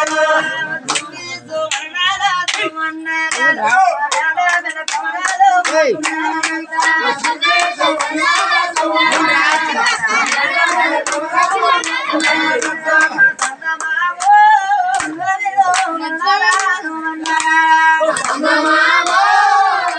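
A group clapping hands in a steady rhythm, about two claps a second, while voices sing along over a held note.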